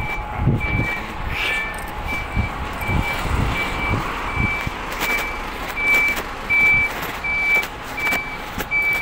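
Truck reversing alarm beeping steadily, short single-pitch beeps about twice a second.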